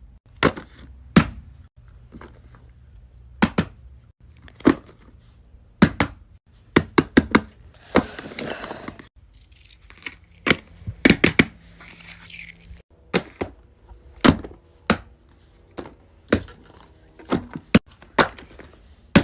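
Irregular knocks and clacks of small plastic fidget toys being picked up and set down on a hard surface, with a couple of short stretches of rustling in between.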